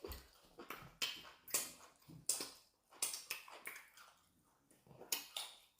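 Eating sounds at the table: a run of short, faint taps and clicks, about one or two a second, as food is eaten.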